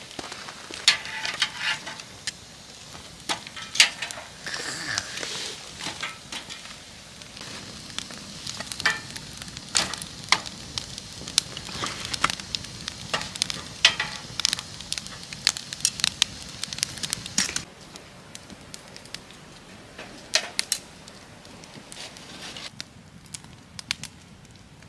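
Split firewood burning in a small metal fire box, crackling with frequent sharp pops over a steady hiss of flame. It gets quieter, with fewer pops, about two-thirds of the way through.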